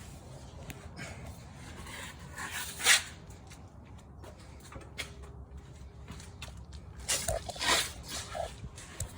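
Lexus GX460 suspension giving a sharp pop about three seconds in and a cluster of creaks and pops between about seven and eight seconds, over a steady low rumble; this is the pop noise that comes when the vehicle turns.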